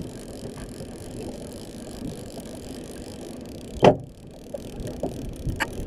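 Steady hum of the boat's engine under wind and water noise, with one sharp knock about four seconds in and a smaller click near the end.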